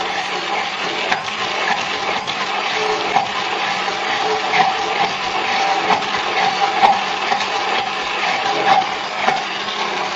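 Hand-held immersion blender running steadily in its plastic beaker, with a constant motor whine, blending powdered milk, sugar and hot water. A few light knocks come through at irregular moments.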